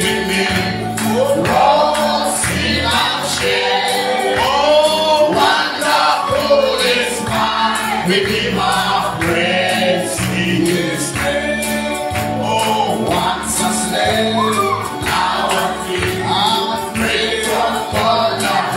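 Gospel worship music: voices singing a melody with sliding, held notes over a band accompaniment with a steady beat.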